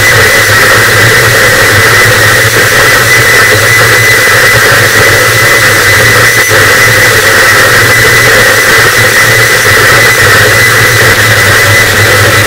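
Harsh noise wall: a very loud, unchanging wall of dense distorted static, with a steady low hum underneath and a thin high steady tone on top.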